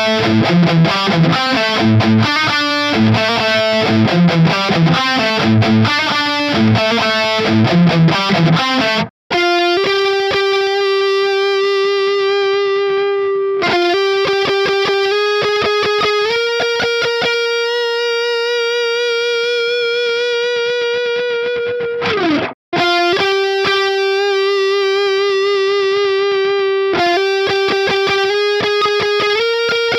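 Electric guitar through distortion. It plays a fast riff in low chords, then after a brief gap long sustained single lead notes. One note slides down in pitch about two-thirds through, then after another brief gap it holds more lead notes.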